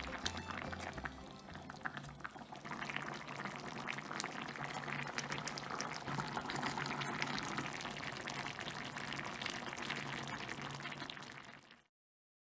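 Kimchi stew boiling in an earthenware ttukbaegi pot: a dense, steady bubbling of many small pops and blips from the thick broth. It fades out near the end.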